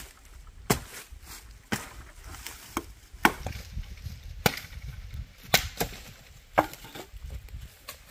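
A machete chopping into a thin tree trunk: sharp single knocks, roughly one a second and unevenly spaced, some harder than others.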